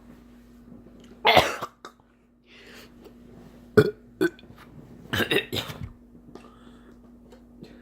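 A person making burp-like throat and mouth gurgling noises: a gurgle about a second in, two sharp short ones around four seconds, and a longer broken gurgling run near six seconds.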